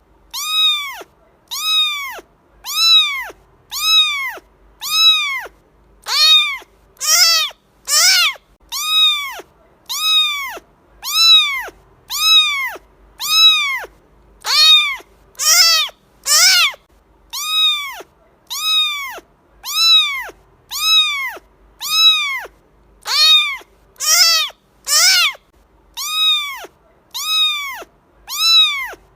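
A cat meowing over and over, about once a second, each high-pitched meow rising and then falling in pitch. A few meows, around a quarter, halfway and three quarters of the way through, are louder and brighter.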